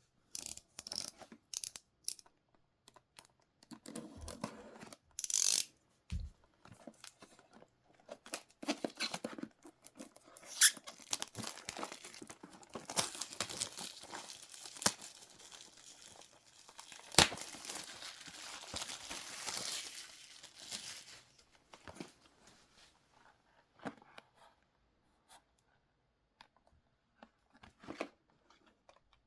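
Packaging of a trading-card box being torn open and crinkled by hand, with scattered sharp clicks; a long, dense run of tearing and crinkling in the middle, then only occasional small rustles.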